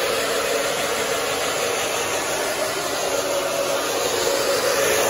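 Drybar hand-held hair dryer running steadily, a constant rush of air with a hum under it, blowing on a dog's coat to dry it after a bath.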